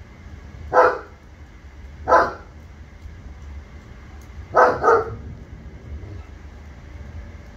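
A dog barking: single barks about a second in and a second later, then a quick double bark about halfway through, over a steady low rumble.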